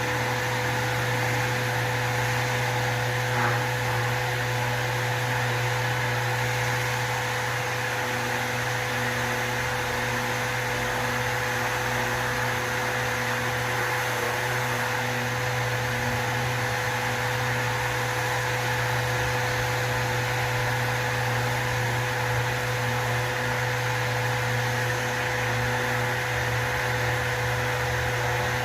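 Random orbital sander with an attached vacuum dust extractor running steadily, sanding acrylic putty, with a constant whine over its hum.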